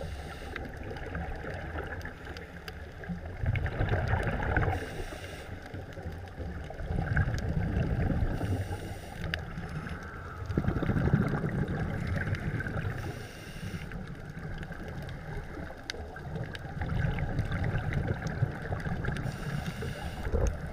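A scuba diver breathing through a regulator underwater: rumbling swells of exhaled bubbles about every four seconds, with short hissing breaths between them.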